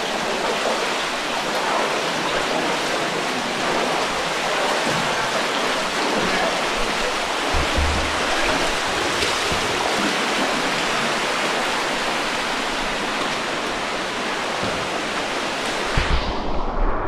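Rushing water of an underground stream in a limestone cave, a steady even rush close to the camera, with a low bump about halfway. Near the end the sound turns suddenly dull and muffled as the camera dips under the water.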